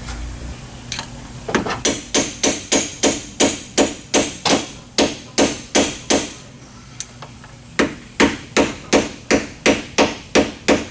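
Steady run of hammer blows on metal, about three a second, pausing briefly near the middle and then starting again: working a seized head dowel pin loose from a Pontiac 400 cast-iron block after welding a piece onto it to get a grip.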